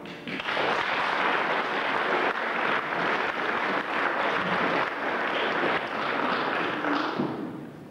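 Audience applauding, steady for several seconds and dying away near the end.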